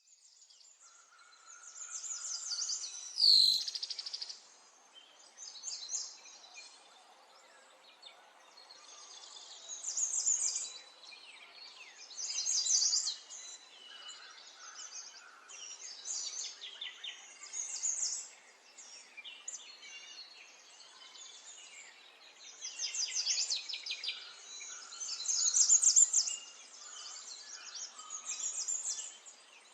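Small songbirds chirping and trilling in repeated bouts of rapid, high-pitched notes over a faint outdoor background. One loud, sharp sound with a falling sweep stands out about three seconds in.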